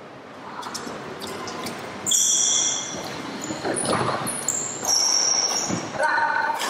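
Badminton doubles rally on a wooden indoor court: sports shoes squeak sharply and repeatedly on the floor from about two seconds in, mixed with the crisp hits of rackets on the shuttlecock.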